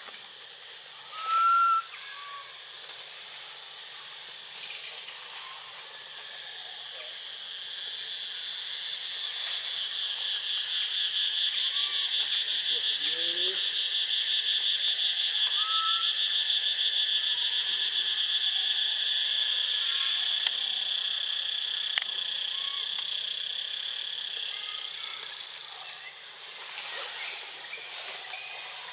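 Insect chorus: a steady high buzz that swells up over several seconds, holds, and fades away again near the end. A short high chirp stands out about a second and a half in, and a few fainter chirps come later.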